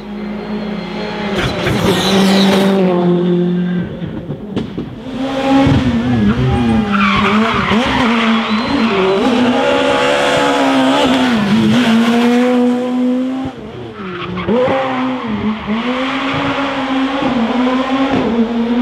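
Rally car engines at full throttle, the pitch climbing and dropping again and again through gear changes and braking as the cars pass.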